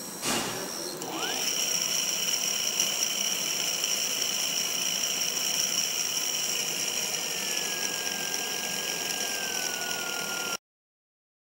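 Small brushless DC motor driven by a homemade brushless speed controller (ESC), spinning up with a short rising whine about a second in, then running steadily with a high-pitched whine. A fainter tone slowly falls in pitch in the last few seconds before the sound cuts off suddenly.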